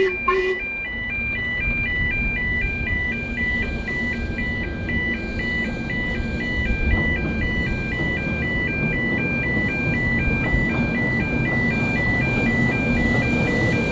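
Road level-crossing warning alarm sounding, a steady two-tone warble alternating about twice a second. Under it is the low rumble of an approaching narrow-gauge double Fairlie steam locomotive, whose whistle cuts off about half a second in.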